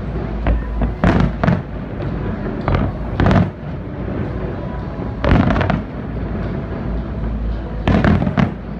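Aerial fireworks shells bursting in a display, sharp bangs coming in clusters about a second in, around three seconds, around five seconds and near the end, over a steady low rumble.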